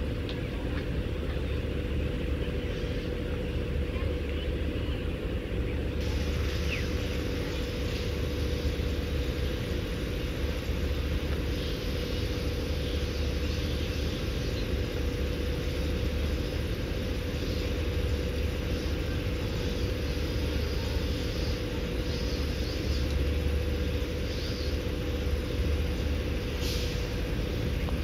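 Queensland Rail Tilt Train standing at the platform with its onboard equipment running: a steady low rumble with a constant mid-pitched hum.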